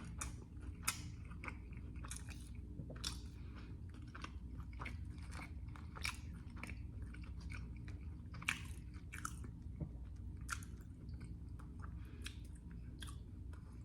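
Close-up mouth sounds of someone chewing a crisp pizza melt dipped in sauce: irregular wet clicks and crunches from biting and chewing, several a second, over a faint steady low hum.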